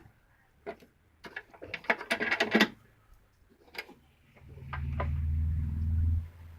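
Clicks and clatter, like tools and a metal toolbox being handled, thickest in the second and third seconds. About four seconds in, a low rumble starts and runs for nearly two seconds before cutting off.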